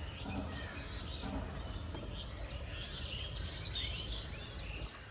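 Outdoor background noise with small birds chirping, mostly from about three to four and a half seconds in, over a steady low rumble.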